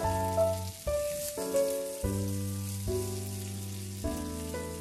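Sausages and cherry tomatoes sizzling in a stainless steel frying pan, a steady hiss, under background piano music.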